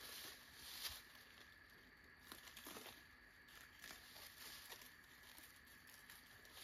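Faint crunching and rustling of slow footsteps through dry fall leaves and undergrowth, a soft crunch every second or so.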